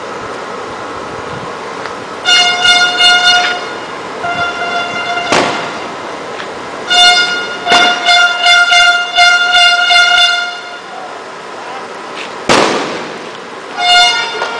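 A vehicle horn honking in runs of short blasts on one steady tone, with three sharp, echoing bangs in between, at about five, eight and twelve and a half seconds in.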